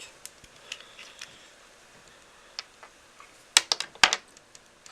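Scattered light clicks and taps of small tools and parts being handled on a workbench, with a quick cluster of sharper, louder clicks about three and a half seconds in.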